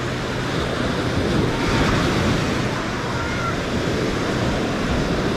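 Ocean surf washing onto the beach with wind on the microphone, a steady rushing that swells slightly about two seconds in.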